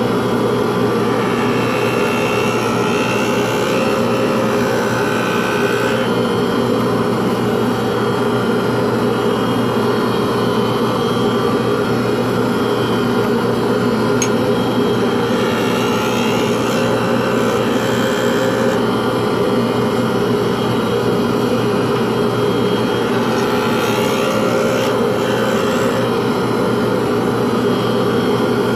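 Workshop power tool motor running steadily with a constant hum, with a faint higher whine that rises and falls now and then as the tool works the pen blank.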